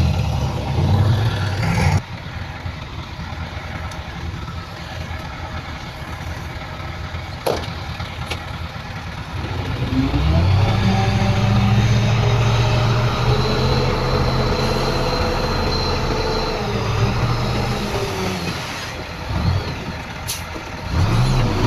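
Heavy diesel earthmoving machinery running: the engine revs up about ten seconds in, works hard for several seconds, then drops back. A few sharp knocks sound along the way.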